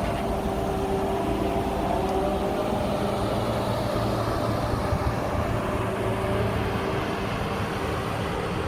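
Engine of a 10-ton steel wheel roller running steadily while it compacts stabilized road base material.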